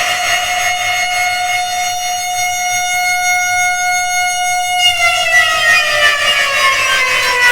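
Alarm siren holding one steady wailing note with many overtones, then sliding down in pitch about five seconds in, played with an echo effect.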